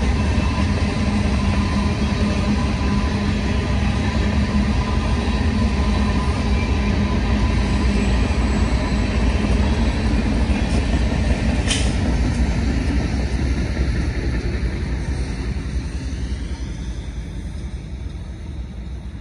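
Freight train of covered grain hopper cars rolling past with a low rumble, its trailing diesel locomotive going by partway through, then the sound fading away over the last few seconds. One sharp click about twelve seconds in.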